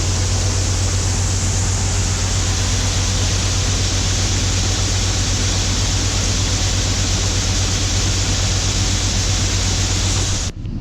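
Heavy farm machinery running steadily: a low engine drone under a loud, even hiss. It cuts off suddenly near the end.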